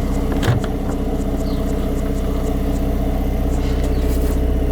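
Car engine idling steadily, with a single knock about half a second in.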